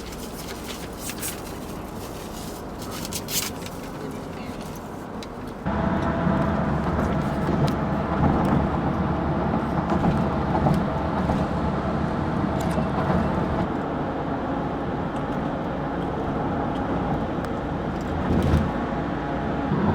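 Car driving, heard from inside the cabin as a steady engine and road rumble. It is quieter with light clicks for the first few seconds, then jumps abruptly louder about six seconds in.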